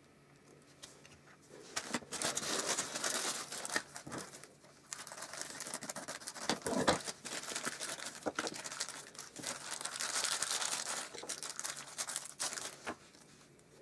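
Tissue paper being handled and crumpled: stretches of crinkling and rustling with a short lull a little over four seconds in, loudest around the middle.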